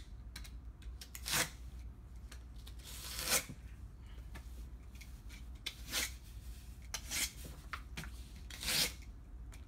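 Knife cutting slits into the corrugated cardboard of a picture box, several short scratchy cuts every second or two, the loudest about three seconds in.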